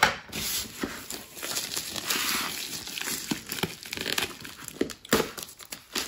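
Plastic USPS Priority Mail mailer crinkling and rustling as it is handled and pulled at, with a few sharp clicks.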